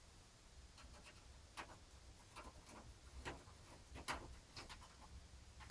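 Faint, irregular small clicks, about one a second, of a screw being fitted into a PC case.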